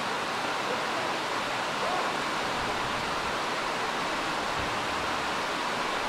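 Torrential downpour: heavy rain pouring down steadily as a dense, even hiss.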